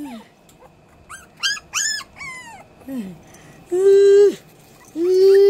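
Puppies whining and crying to be let out of their pen. A run of short, high-pitched yips and whines comes first, then a falling whine, then two longer, steady, louder cries near the end.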